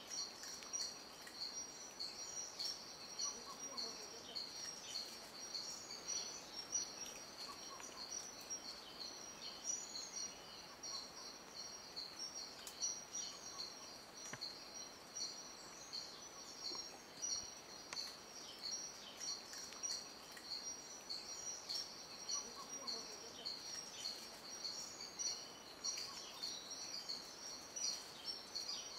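Rainforest ambience: a steady, high-pitched pulsing chorus with scattered bird chirps over it.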